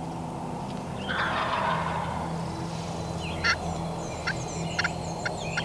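Wild turkey gobbling faintly about a second in, a single rattling gobble lasting about a second, followed near the end by a string of short, sharp bird calls.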